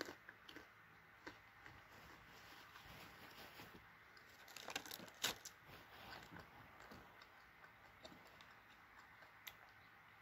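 Faint handling of a clear plastic snack tray: scattered light clicks, with a short cluster of plastic crackles and one sharper click about five seconds in as the cheese stick is lifted out.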